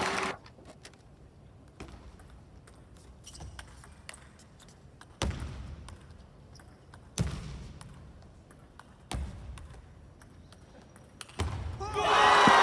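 Table tennis ball clicking off bats and the table during a rally in a large echoing hall, with a few heavier thuds about two seconds apart. Crowd cheering and applause break out near the end as the point is won.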